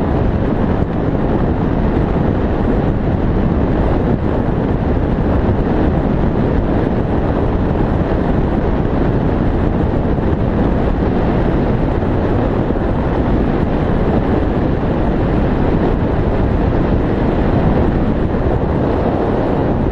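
Wind roaring over the microphone of a camera on a bicycle speeding downhill. It is a loud, steady rush, heaviest in the low end, without a break.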